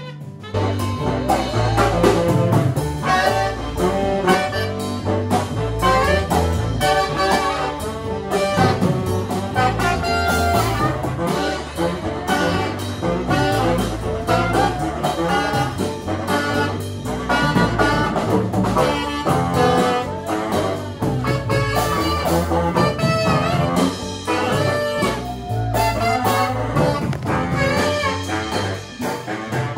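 Small jazz group playing: saxophones over a walking double bass and piano, with busy percussion. A new, fuller passage comes in about half a second in.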